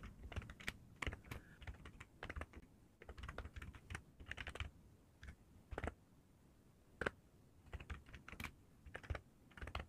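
Keyboard typing: faint, irregular runs of key clicks, thinning out for a couple of seconds midway before picking up again.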